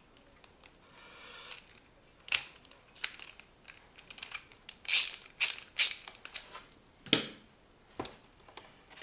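Steel pieces of a socket set being handled: a brief soft scrape about a second in, then a dozen or so sharp clicks and clinks of metal parts against each other and the plastic case as a driver adapter is worked on a screwdriver handle and the pieces are set back in the case.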